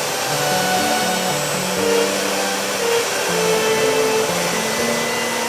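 CNC router spindle running steadily while its fine bit mills the outline of a viola bridge into a wooden blank, with background music playing a slow melody over it.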